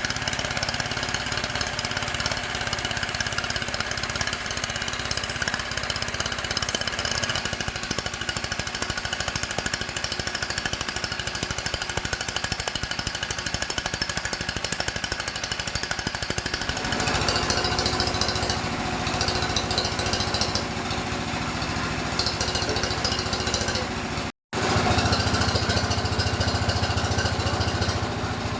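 Sawmill machinery running: a steady engine-driven drone with a fast pulsing beat. About two-thirds of the way through it becomes fuller and deeper, and near the end it breaks off for an instant and resumes.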